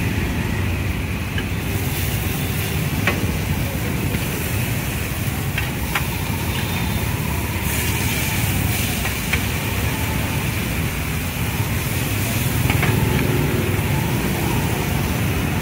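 Steady rumble of street traffic mixed with noodles frying on a large metal pan, with a sharp clink of the metal spatula against the pan every few seconds.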